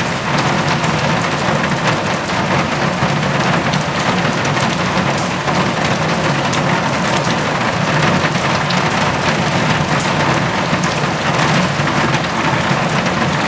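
Heavy rain drumming steadily on a metal roof, a dense patter of drops with many small sharp ticks.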